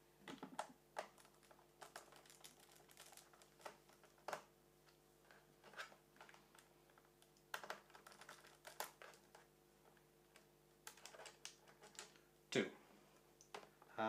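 Faint, scattered clicks and taps of a small Phillips precision screwdriver turning a screw out of a laptop's plastic bottom cover, with one louder tap near the end.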